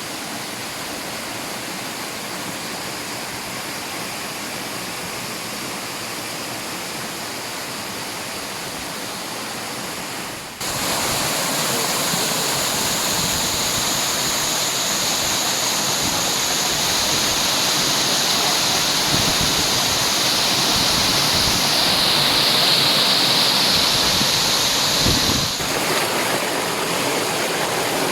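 Rushing water of a waterfall and stream, a steady hiss of noise that suddenly gets louder about ten seconds in and changes character again near the end.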